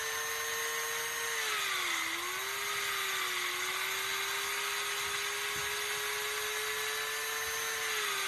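Electric drill motor whining steadily as it spins a fluffy buffing pad. The whine sags in pitch about two seconds in and dips again near the end, as the pad is slowed against the cat's face and fur.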